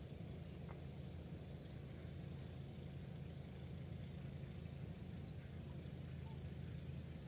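Steady outdoor ambience: a constant low rumble with an even hiss, a thin steady high whine and a few faint chirps.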